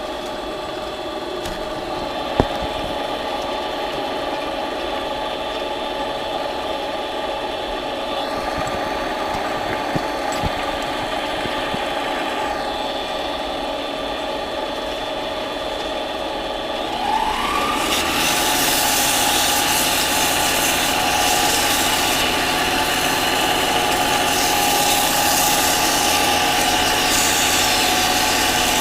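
Harbor Freight mini lathe running steadily, its motor and gear train whining, with a sharp click a couple of seconds in. About 17 seconds in the speed is turned up: the whine rises in pitch and the sound grows louder, with a hiss added.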